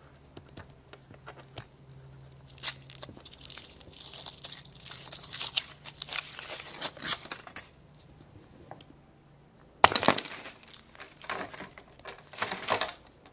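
Wrapper of a chocolate surprise egg being crinkled and torn open by hand, with scattered small clicks. A single sharp crack comes about two-thirds of the way through, followed by more crinkling.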